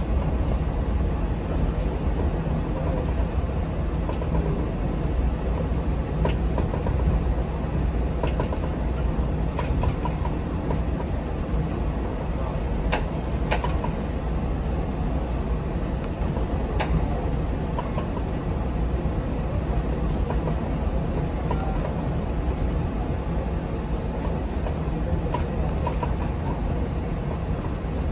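Pingxi Line diesel railcar running slowly, heard from on board: a steady low rumble of engine and wheels, with a few scattered sharp clicks.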